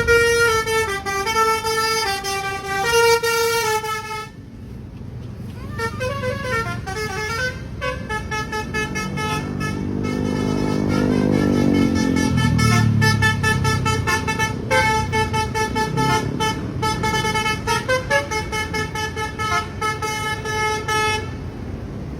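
Bus 'telolet' musical air horn of the Basuri type, playing a short tune of stepping notes over and over. It falls silent shortly before the end. Around the middle the bus's engine passes, its low note falling in pitch.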